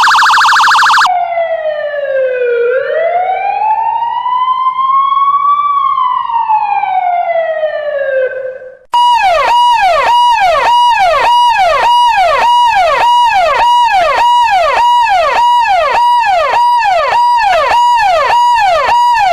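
Electronic emergency-vehicle siren: a loud buzzy horn blast for about a second, then one slow wail that falls, rises and falls again, then switching at about nine seconds to a fast yelp of rapid falling sweeps, about three a second.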